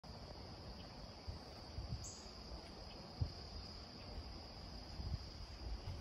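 Summer insects, crickets or cicadas, trilling in a steady high-pitched drone. A few low irregular thumps sound under it, the loudest about three seconds in, and a brief higher chirp about two seconds in.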